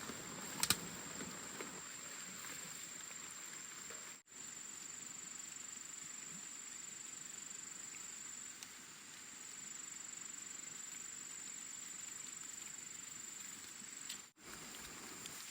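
Rainy forest ambience: a steady hiss of rain with a high, steady insect whine over it, and a few sharp knocks about a second in.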